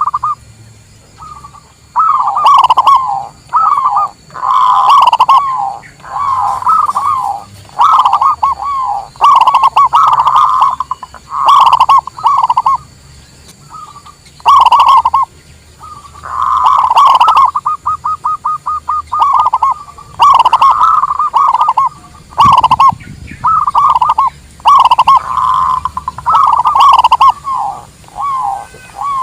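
Zebra dove (local perkutut) cooing in repeated short phrases, with a quick run of rapid notes about 17 seconds in.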